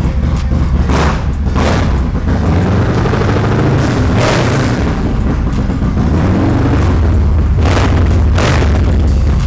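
Harley-Davidson Milwaukee-Eight 114 V-twin running through a TBR Shorty 2-into-1 exhaust on S&S 475G performance cams, idling and revved up and back down a few times, with short sharp blasts from the exhaust.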